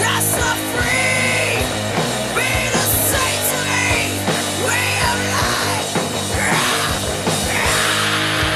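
A rock band playing a song: drums and cymbals hitting on a steady beat under electric bass, with a rough, shouted vocal line.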